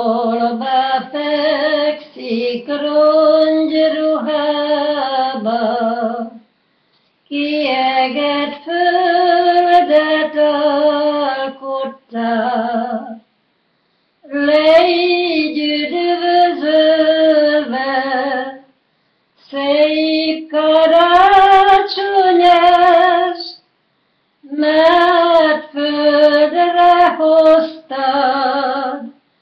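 An elderly woman singing a Hungarian Christmas carol solo and unaccompanied, with a wavering vibrato. She sings it in phrases of a few seconds, each followed by a pause of about a second.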